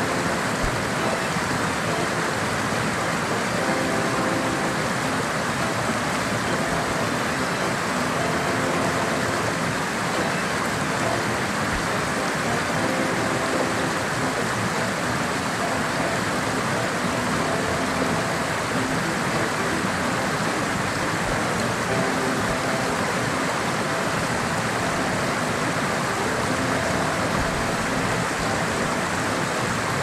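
Small mountain stream rushing steadily over rocks, with faint background music of short held notes coming and going.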